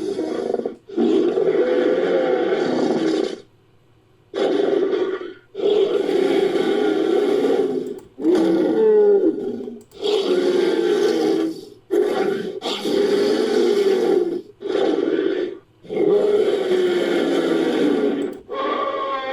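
Designed Majungasaurus sound effects: a string of deep monster roars, one after another with short pauses between them, built from stock creature sounds.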